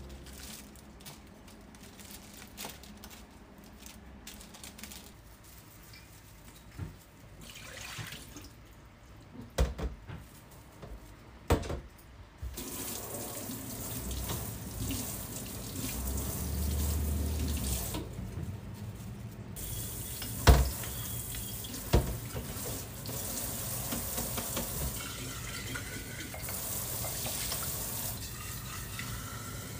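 Quiet rustling of flower wrapping with a few sharp clicks, then, about twelve seconds in, a kitchen tap running into a stainless-steel sink as flower stems and a glass vase are rinsed. The water pauses briefly, and two sharp knocks follow.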